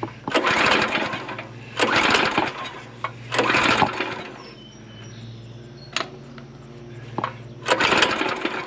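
Harbor Freight Predator small engine pull-started with its recoil cord four times, spinning over without firing, with the spark plug removed and the choke on.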